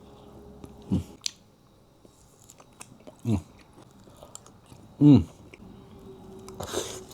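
Close-up chewing and biting of food, with wet mouth clicks and some crunch. About three times a short low vocal sound drops in pitch, the last one the loudest, and a breathy burst comes near the end.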